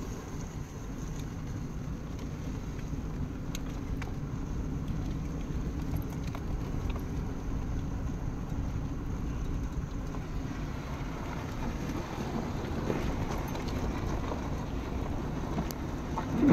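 Vehicle driving on a dirt road, heard from inside the cab: a steady low rumble of engine and tyres, with a few faint clicks.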